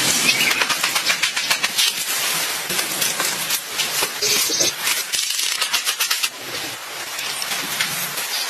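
Rapid scraping, rustling and clicking of hand work with sticks and soil: a stick scratching through sand, earth shaken through a woven basket sieve, and wooden sticks being handled and bent. It is a dense run of clicks and scrapes, with a brief hissing stretch a few seconds in.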